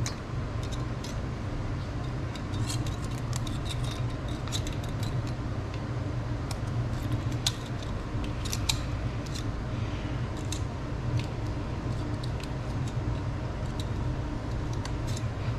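Irregular small metallic clicks and ticks of hand tools working the valve-clearance adjusters on the rocker arms of a Honda B18B1 engine, over a steady low hum.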